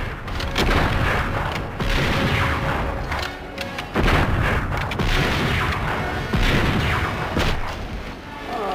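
Revolver gunshots in a film gunfight, one loud shot about every second or so, with movie music under them.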